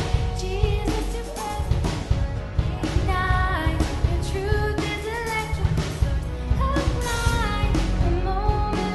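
Worship song played by a band with a drum kit, and a voice singing a flowing melody over it.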